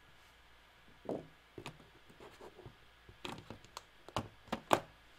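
Small hand tools from a coil-building kit being handled and set down: a series of light clicks and taps, coming closer together after about three seconds, with the sharpest tap near the end.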